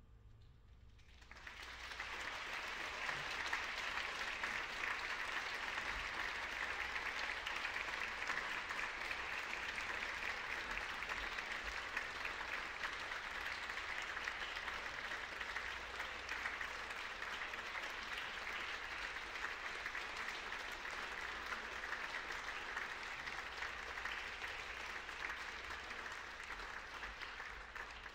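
Audience applauding, starting about a second and a half in, holding steady, then easing off near the end.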